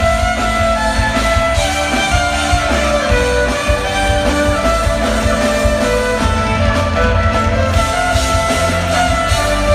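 Live electric violin and band music played loud through a concert PA, heard from within the audience: a held melody over drums, bass and keyboards.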